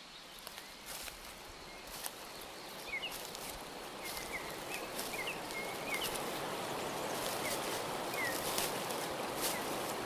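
Outdoor nature ambience: a steady rushing hiss that grows gradually louder, with short high bird chirps scattered through it and a few faint clicks.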